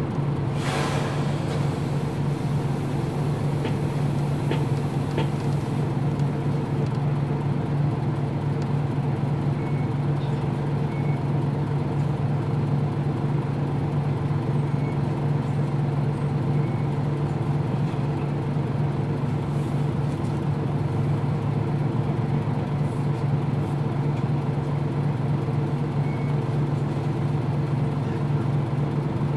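Nissan Diesel KL-UA452MAN city bus's diesel engine heard from on board, running at one steady speed throughout, as at idle while stationary. A short air-like hiss comes about half a second in.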